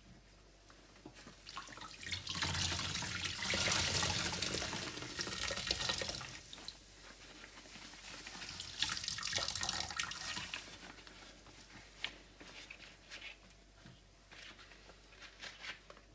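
Water running and splashing into a tub of sudsy floor-cleaner solution, in two spells of a few seconds each, the first the louder, followed by a few short splashes near the end.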